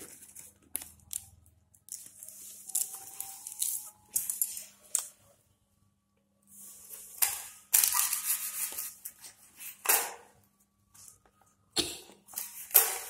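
Kitchen knife cutting through a stack of folded dong leaves on a plastic cutting board: crisp rustling and crackling strokes, the loudest in the second half, with a few sharp knocks of the blade on the board.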